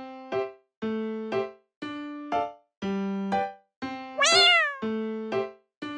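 Cheerful keyboard music in an even repeating pattern of short notes, about one phrase a second, with a single cat meow about four seconds in that rises and then falls, the loudest sound.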